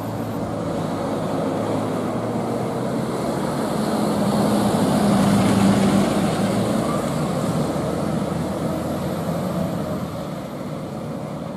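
Diesel engine of a fire engine (an emergency rescue pump) driving past. The engine sound grows as it approaches, is loudest about halfway through as it passes, then fades as it drives away.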